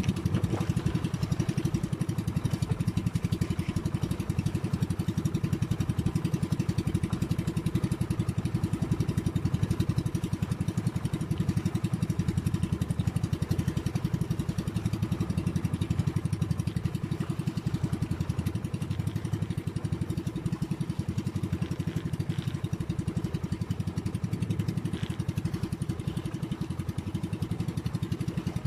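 Outrigger fishing boat's engine running at a steady speed, an even rapid pulse with no change in pace.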